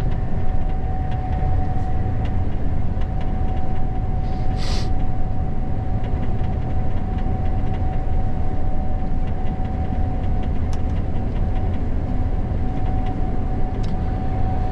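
Gleaner S98 combine running steadily while harvesting corn, heard from inside the cab: a steady low drone with a constant high whine over it. A brief hiss comes about four and a half seconds in.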